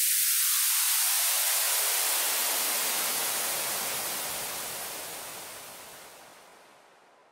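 Synthesized white-noise sweep ending an electronic music track. A hiss with no notes starts high and thin, spreads steadily downward until it is full, then fades away over the last few seconds.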